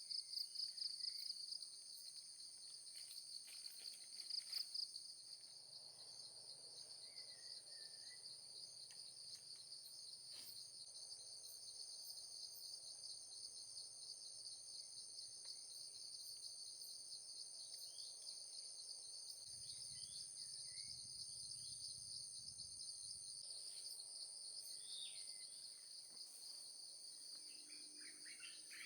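Insects chirring in a steady, high-pitched trill, with louder pulsing stretches near the start and about four seconds in. A few faint bird chirps come through here and there.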